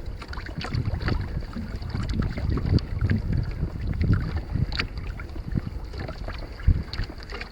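Wind gusting over the microphone in irregular low buffets aboard a small Hobie Adventure Island trimaran kayak, with scattered light splashes of water against the hull.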